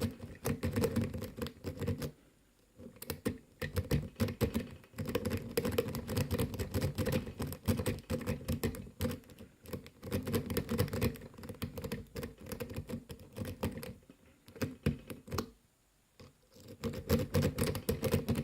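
Lock pick raking the pin tumblers of a Tri-Circle 264 padlock: rapid clicking and rattling in bursts, broken by short pauses about two seconds in, near five seconds and around fifteen seconds.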